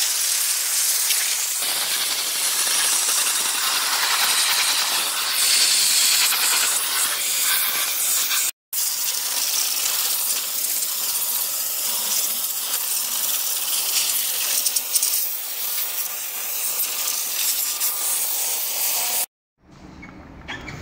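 MONAIR compact steam cleaner's wand blasting high-pressure steam, a loud steady hiss with a brief gap about eight and a half seconds in. The hiss stops abruptly near the end.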